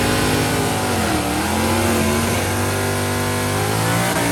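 V8 car engine held at raised revs to warm the oil to temperature. The pitch dips about a second in, then climbs back and holds steady.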